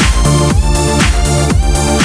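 Electronic dance music with a steady kick drum, about two beats a second, under held synth chords.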